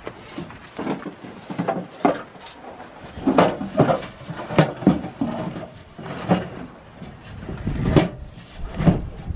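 Griddle in its black carry case being shoved into a pickup bed: a run of irregular knocks, bumps and scrapes against the ribbed bed liner, louder from the middle on.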